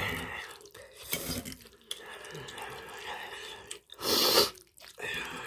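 Metal fork stirring and mashing wet, saucy octopus and rice bibimbap on a plate. A short, loud burst of noise comes about four seconds in.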